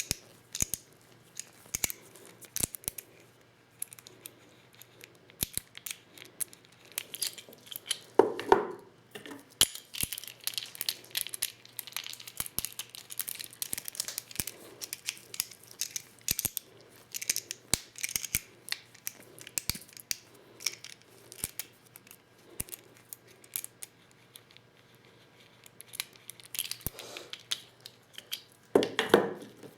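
Hand-reloading 12-gauge shotgun shells with a Lee Loader kit: a run of small clicks, taps and scraping of shell hulls and loader parts, with two louder short bursts of handling noise about eight seconds in and near the end.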